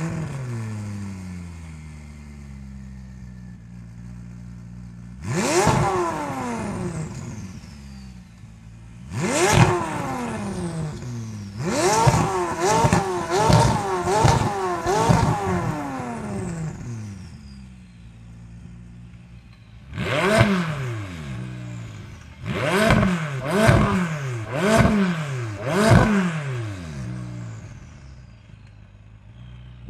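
McLaren 570S twin-turbo V8 with AWE Tuning 200-cell high-flow performance catalysts, firing up with a flare of revs that settles to idle. It is then revved while standing: two single revs, a run of quick revs, another single rev, and four short sharp blips near the end.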